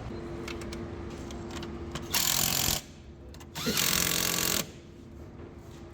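Two loud bursts of hissing, the first about half a second long and the second about a second long, over a steady low hum.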